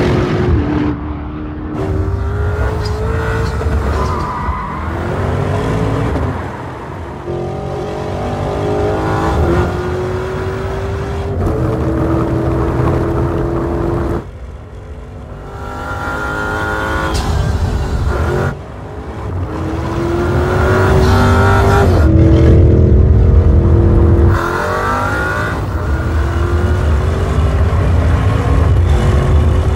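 Porsche Cayenne Turbo GT's 4.0-litre twin-turbo V8 accelerating hard through the gears, the engine note rising in each gear and dropping back at every upshift, over several runs. The sound falls away briefly twice around the middle before picking up again.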